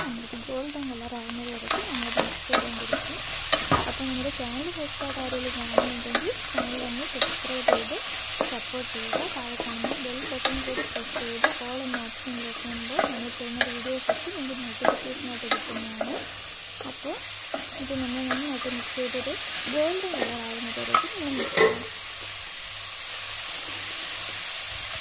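Sliced raw onions and green chillies sizzling in hot oil in a metal pan, stirred with a wooden spatula that scrapes and taps against the pan in frequent sharp knocks.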